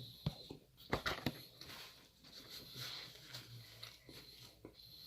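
Close-miked eating sounds: a person chewing food, with a few sharp mouth clicks about a second in.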